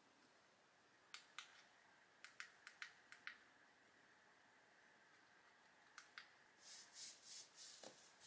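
Quiet room with a handful of sharp, light clicks and taps, then five or six soft swishing strokes near the end.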